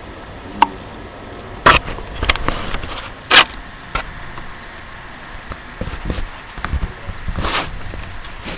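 A man snoring in his sleep, with irregular rough snorts and a breathy rush near the end. A few sharp clicks or knocks come in the first half, the loudest about a second and a half and three and a half seconds in.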